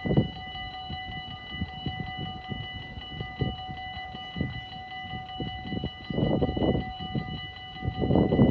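Dutch level-crossing warning bell ringing steadily while the barriers are down, the signal that a train is approaching. An irregular low rumble runs beneath it and swells twice in the second half.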